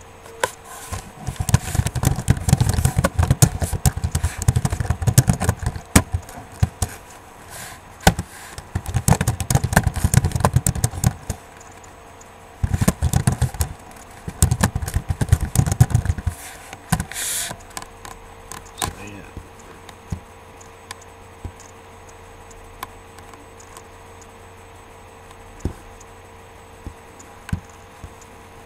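Scraping, rattling handling noise in three bursts over the first half or so, then only scattered light clicks over a steady low hum.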